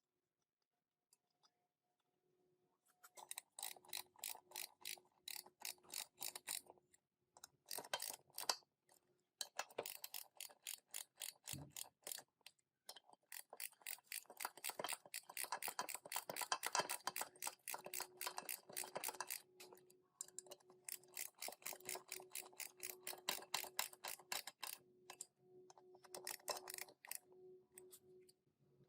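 Runs of rapid metallic clicking, several clicks a second, with short pauses, from hand work on an old manual gearbox, over a faint steady hum.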